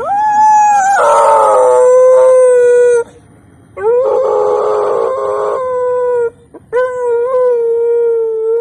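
A dog 'singing': three long howls in a row, each holding a steady pitch and breaking off abruptly. The first starts higher and drops about a second in.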